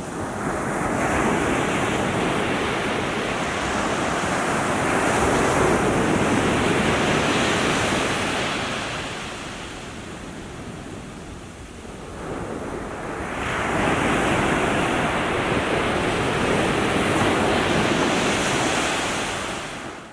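Small waves washing onto the shore, the surf swelling twice with a lull about halfway between.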